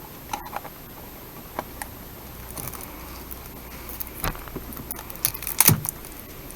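Scattered light clicks, taps and rustles of cards and cardboard packaging being handled, with a louder flurry of handling noise a little past halfway.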